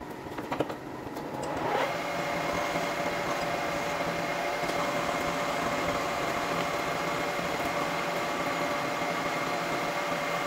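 Metal lathe: a few sharp clicks as the workpiece is clamped in the three-jaw chuck, then the spindle starts up with a rising whine about two seconds in. It settles into a steady motor-and-gear whine and hum.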